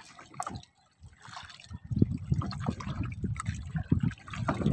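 Water splashing and dripping off a wet fishing net as it is hauled by hand into a small boat, getting busier and louder about two seconds in.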